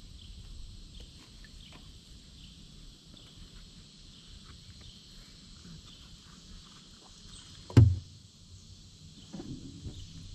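Kayak paddling: soft paddle splashes and drips against a steady background of insects chirping in a fast even rhythm. About eight seconds in, one loud thump, the paddle knocking the kayak.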